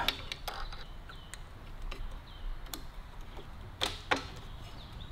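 Light metal clicks and taps from hands handling the shoes and springs of a classic Mini's rear drum brake on its back plate, scattered through with one sharper click near the end.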